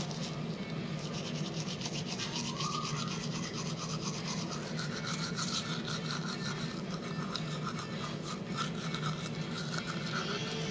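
Manual toothbrush scrubbing teeth close to the microphone: steady, rapid back-and-forth strokes of bristles rasping over teeth in toothpaste foam.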